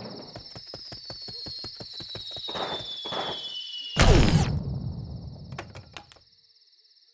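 Cartoon sound effects: a high whistle slowly falling in pitch over a run of quick clicks, then a loud crash about four seconds in that dies away.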